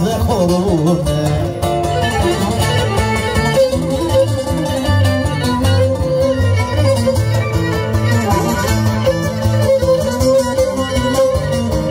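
Live band playing an instrumental passage: a bowed string instrument carries the melody over plucked strings and a steady pulsing bass.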